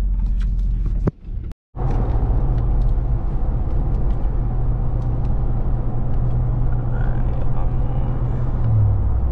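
Supercharged 6.2-litre Hemi V8 of a 2021 Ram 1500 TRX running as the truck drives, a steady low engine note with road rumble. The sound drops out for a moment about a second in, and the engine note rises briefly near the end.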